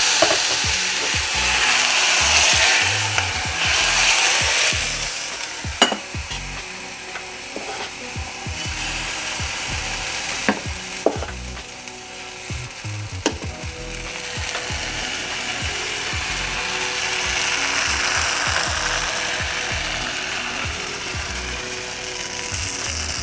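Water sprinkled into a hot appam pan sizzling loudly, fading over the first few seconds. A few sharp knocks of a ladle against the pan follow, then a second, softer stretch of sizzling as batter goes into the hot pan and the pan is swirled.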